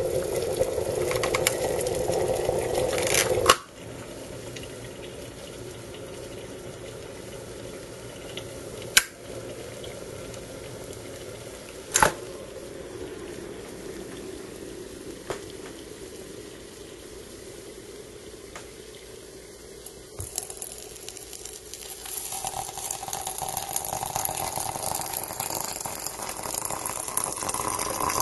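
Electric kettle at a rolling boil that stops abruptly with a sharp click about three and a half seconds in: the kettle switching itself off. A few clicks of handling follow. From about 22 s, hot water is poured from the kettle into a ceramic teapot, splashing onto loose tea leaves.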